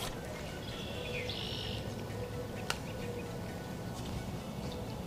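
Outdoor ambience: a steady low rumble of wind, with a short high bird call about a second and a half in and one sharp click near the middle.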